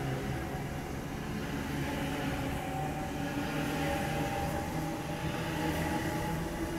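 Sydney Trains double-deck electric passenger train running along the platform, with a steady electric motor hum of several held tones over the rumble of wheels on rail.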